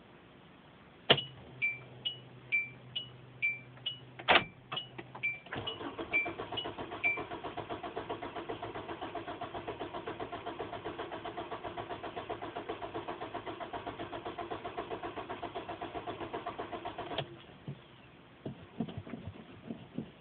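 A car's two-note warning chime dings repeatedly as the key is turned on, then the starter cranks the engine in an even, rapid pulse for about twelve seconds without it catching, and stops. The engine will not start.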